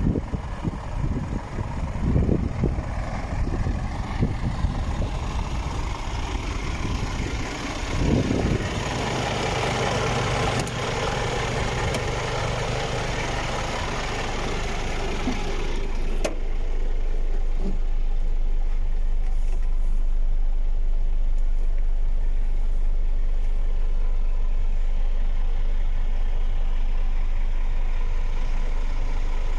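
Scania P450 truck's diesel engine idling steadily, with wind buffeting the microphone during the first half. About sixteen seconds in there is a sharp click, and after it the idle is heard as a steady low hum from inside the closed cab.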